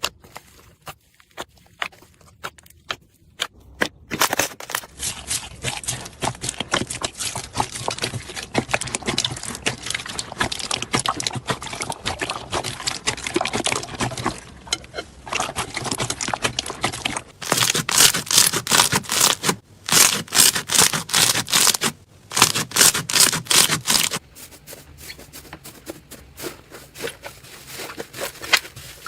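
Slime being handled by hand, making sticky crackling and popping. A few scattered clicks at first give way to dense crackling about four seconds in. Louder squishes come in short runs with brief gaps in the middle part, and quieter crackling follows.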